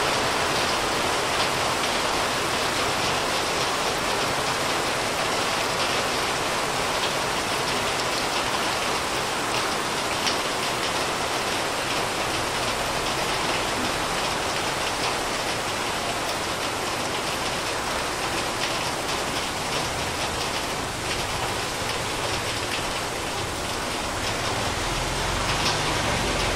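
Heavy rain pouring down steadily, a dense even hiss of drops hitting the ground and surfaces.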